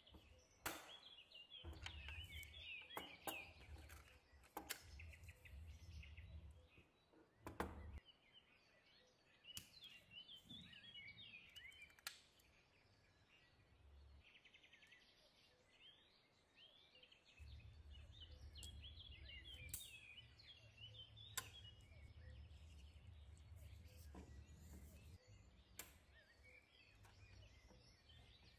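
Faint handling noise: a few sharp clicks and taps of plastic and die-cast scale-model truck parts being fitted together. Small birds chirp faintly in the background, and a low hum comes and goes.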